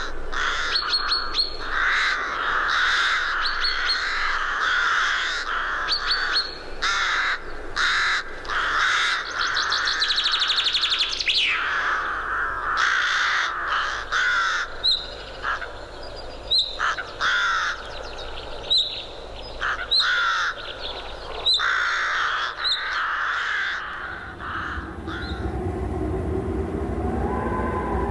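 Birds calling over and over, in quick clustered calls. About 24 s in the calls die away and a low steady rumble takes over.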